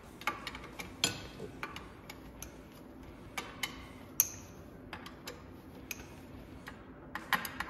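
Irregular metallic clicks and clinks from a socket wrench with a long extension bar being worked on the bolts of a Yamaha Tricity 300 single-cylinder engine during disassembly. The sharpest click comes about four seconds in, and several follow in quick succession near the end.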